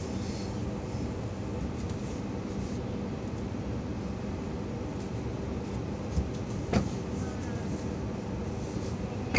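Interior running noise of an H set (OSCAR) electric multiple unit train on the move: a steady rumble with a low hum, broken by two sharp knocks a little after six seconds in.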